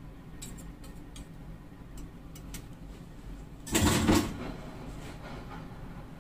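A few light clicks of a wire whisk against a stainless steel bowl, then about four seconds in a brief, louder clatter as kitchen utensils are handled and set down.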